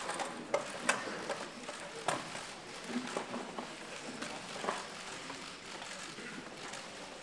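Low murmur and shuffling of a large room full of seated people, with scattered sharp clicks now and then.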